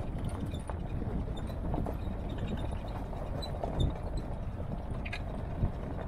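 Jeep driving along a rough dirt track: a steady low rumble of engine and tyres, with a few scattered knocks from the bumpy ground.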